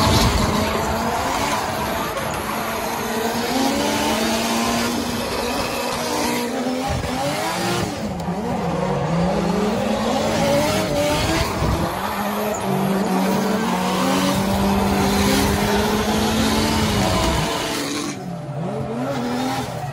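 Drift car engine revving up and down with the throttle, heard from inside the cabin, over a steady hiss of sliding, squealing tyres; the sound drops away near the end.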